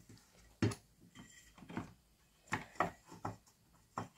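A series of irregular light knocks and clicks as the clock's circuit board and plastic housing are handled and fitted together.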